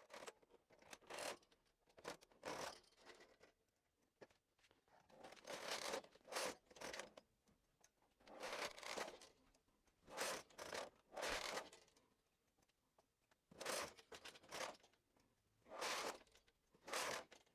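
Brother 260 bulky knitting machine carriage and KR-260E ribber carriage pushed back and forth across the needle beds, knitting circular rows. It comes as about a dozen short, faint passes, each under a second, with near silence between.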